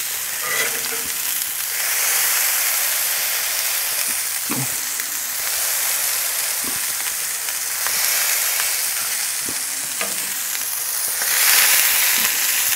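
Ground-beef burger patties frying on a hot, oiled plancha: a steady sizzle that swells each time a ball of meat is pressed flat with a steel spatula, loudest near the end as the fat spatters.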